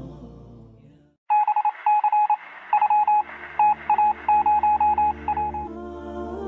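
Electronic beeping: one high tone switching on and off in an irregular string of short and long beeps, like Morse code, for about four seconds.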